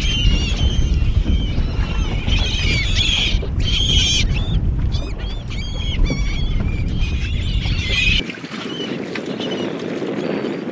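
A flock of seabirds calling over the water: many short, high cries, overlapping and repeated. Under them a strong low wind rumble on the microphone cuts off abruptly about eight seconds in.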